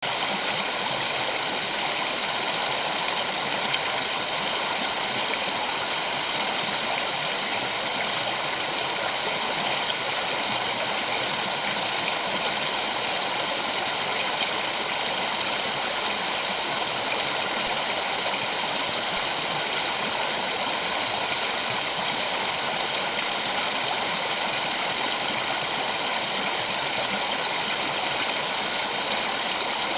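Creek water running steadily, an unbroken rushing sound.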